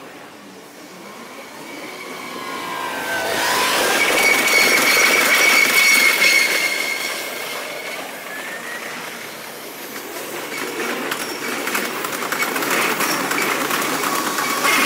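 Electric train coming through on the curve, its wheels squealing in a steady high whine for a few seconds. It then passes close with a fast rhythmic clatter of wheels over the rail joints.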